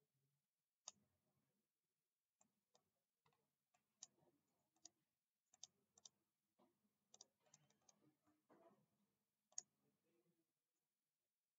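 Faint computer mouse clicks, over a dozen at irregular intervals, some in quick pairs, against near silence.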